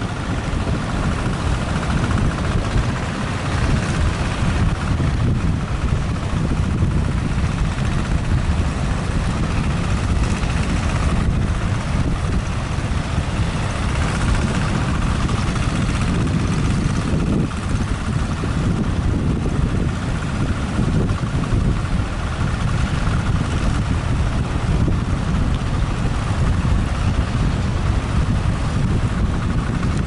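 Strong wind buffeting the microphone over the steady wash of heavy surf breaking on the shore.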